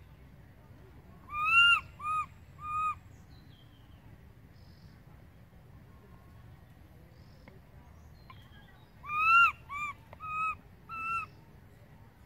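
Baby macaque crying, separated from its mother: two bouts of high calls that rise and fall, a long call followed by two short ones, then, about seven seconds later, a long call followed by three short ones.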